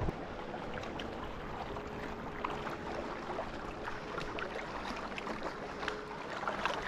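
Water washing against a rocky lakeshore, with scattered small clicks and scuffs of footsteps and brush and a faint distant steady hum.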